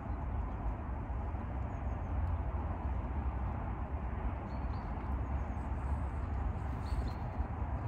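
Wind buffeting the microphone outdoors, a steady rushing with a flickering low rumble. A few faint short bird chirps come through about halfway and again near the end.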